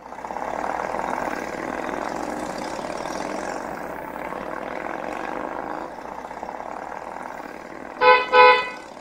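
Motorcycles riding past as a steady, noisy engine sound effect that fades a little toward the end. Near the end, a vehicle horn gives two short toots.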